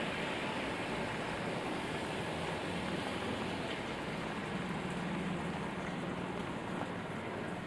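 Steady rainfall on a city street, an even hiss of rain with a low hum of traffic underneath.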